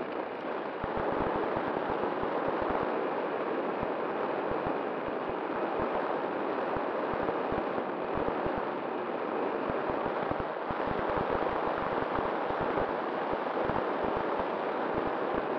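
Wind rushing and buffeting over an onboard camera's microphone on an E-flite Timber RC plane taking off and climbing, with its electric motor and propeller running underneath as a faint steady hum. The sound grows louder in the first second as the plane gets going, then holds steady with frequent low crackling thumps of wind.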